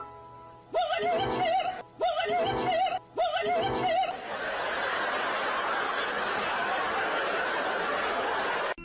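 Edited-in comedy sound effects over the clip: a wavering, laugh-like sound repeated three times, each about a second long, then a few seconds of steady rushing noise.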